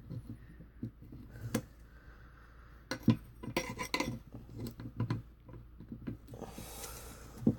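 Screwdrivers used as tyre levers clinking and knocking against the wheel rim as they are worked under a tubeless quad tyre's bead, a series of sharp irregular taps, with a scraping rub of tool and rubber against the rim near the end.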